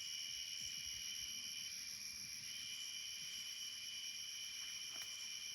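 Steady chorus of night insects, several layers of constant high-pitched trilling, one of them pausing briefly about two seconds in.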